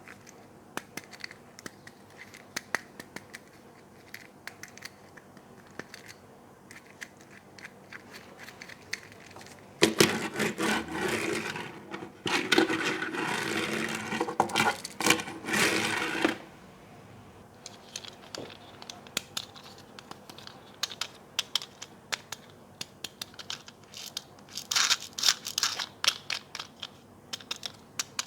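Toy packaging being opened by hand: scattered small clicks and taps, and about ten seconds in a six-second stretch of crinkling and tearing packaging.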